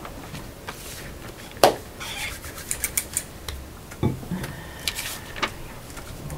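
Scattered small clicks and taps of objects handled on a wooden table, with one louder knock about one and a half seconds in and a quick run of clicks a little later.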